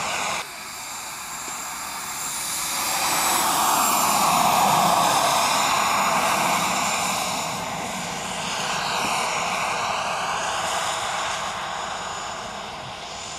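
Turbine engine of a radio-controlled model jet on low, fast passes: a rushing jet noise with a high turbine whine. It swells to its loudest about four to six seconds in as the jet goes by, eases off, then rises again with a sweeping whine before fading near the end.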